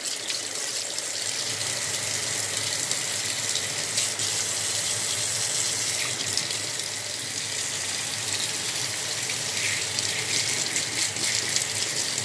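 Kitchen faucet running a steady stream of cold water over a hand and into a stainless steel sink.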